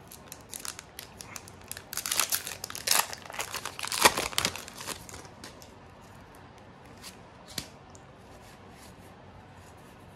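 Foil Pokémon booster pack wrapper crinkling and being torn open, a dense run of crackles over the first five seconds, then only a couple of faint ticks.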